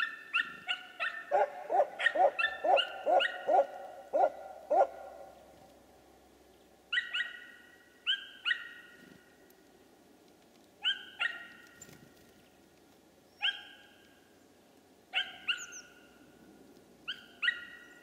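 Short, sharp animal calls: a quick run of about a dozen in the first five seconds, then calls mostly in pairs every second or two.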